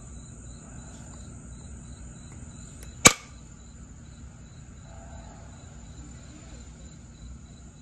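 A single sharp click about three seconds in: a pressure flake snapping off a jasper point under a copper-tipped pressure flaker. A cricket chirps faintly and regularly underneath.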